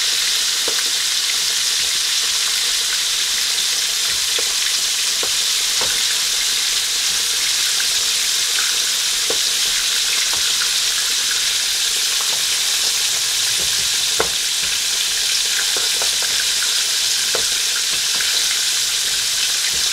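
Chicken pieces deep-frying in hot oil in a Dutch pot: a steady sizzle. Now and then a light click or scrape as metal tongs work chicken through a plastic tub of flour.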